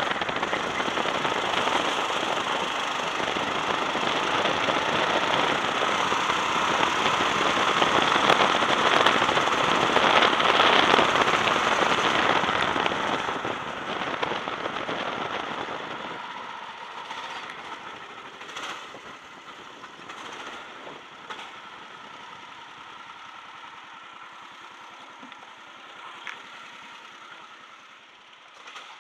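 Go-kart engine and wind rush heard from an onboard camera at speed, a loud, even noise that dies away from about twelve seconds in as the kart slows. It settles to a much quieter low noise with a few sharp clicks as the kart rolls slowly.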